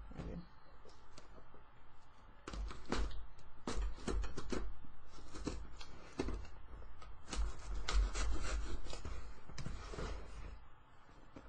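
Cardboard shipping box being handled and opened by hand close to the microphone: an irregular run of scrapes, rustles and knocks of the cardboard, with low bumps underneath.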